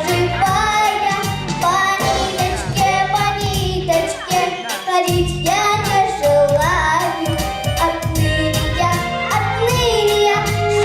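A girl singing a song over a pop backing track with a steady beat.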